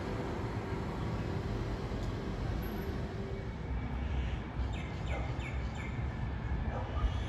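Steady low hum and rumble of an OSCAR H-set electric train standing at the platform. A bird chirps four times in quick succession about five seconds in.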